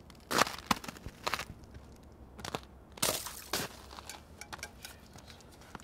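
Footsteps crunching on frozen gravel and snow: a few sharp, uneven steps in the first few seconds, then softer shuffling as the walker slows at the water's edge.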